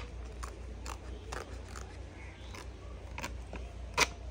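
Thin paper of a Google AdSense PIN mailer being torn open along its edges and unfolded by hand: a run of short crinkles and tearing ticks, with one louder snap of paper about four seconds in.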